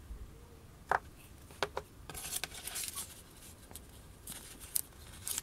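A CB09 drag-blade vinyl cutter drawn by hand across a scrap of vinyl on a cutting mat: a few sharp taps, then a scratchy scoring sound for about a second as it makes a short test cut for blade depth. Then light clicks and crinkling as the vinyl sheet and its backing paper are picked up and flexed.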